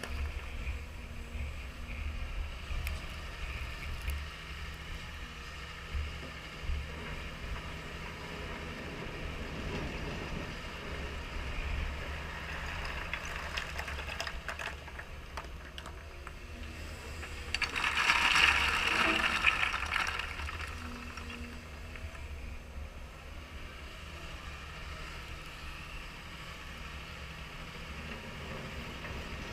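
CAT 320E excavator's diesel engine running at a steady hum while it moves stone, with stones clattering. About two-thirds of the way through comes a loud rush of rock tumbling from the bucket onto the pile.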